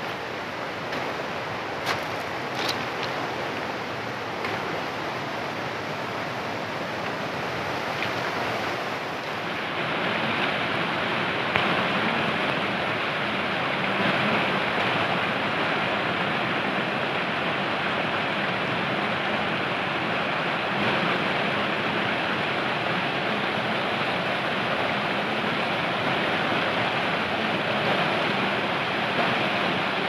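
Fast, swollen mountain stream rushing over rocks: a steady whitewater hiss that grows louder about ten seconds in.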